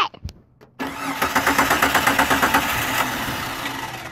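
Jeep Cherokee engine cranking on its starter with a fast, even chugging, starting suddenly about a second in and cutting off near the end.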